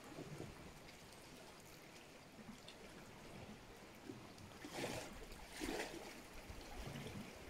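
Small waves lapping and trickling over the pebbles and rocks of the shoreline, with two louder washes about five and six seconds in.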